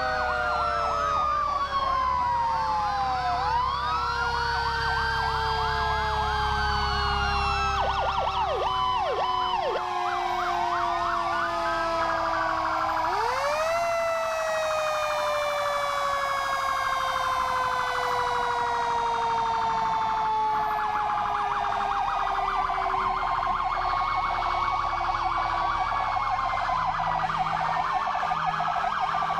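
Several fire truck and ambulance sirens sound at once, their wails overlapping and rising and falling, with rapid yelps about eight seconds in and through the last third. One deep siren tone slides slowly down in pitch, then winds back up about halfway through. A heavy truck engine rumbles low for the first third.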